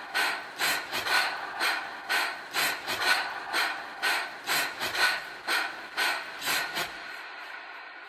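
Rapid rasping breaths in the dance's music track, about two a second, over a faint fading musical tone; the breathing stops about seven seconds in.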